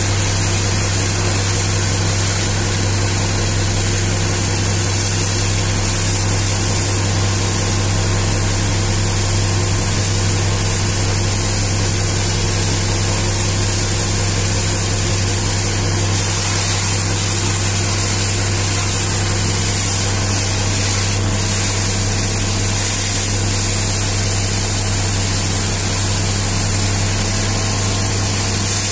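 High-pressure water jet hissing and spattering as it blasts mud off a dump truck's tyre and chassis, over the steady drone of an engine running at constant speed.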